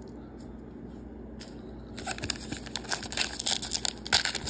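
Baseball card pack wrapper being torn open by hand. After a quiet moment it starts about halfway in as a dense run of sharp, irregular crinkling and crackling.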